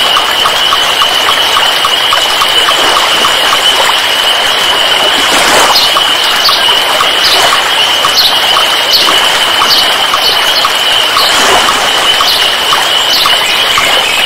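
Short high chirps, as of birds, scattered over a steady loud hiss and a constant high-pitched tone, with a fast, even ticking underneath.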